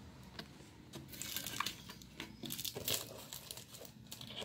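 Packaging being handled and crinkled while a parcel is unboxed, in irregular crackling bursts that cluster between about one and three seconds in, with another brief one near the end.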